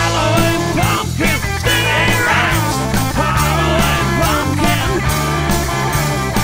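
Rock band music with no vocals: an electric guitar playing a bending lead line over bass and drums keeping a steady beat.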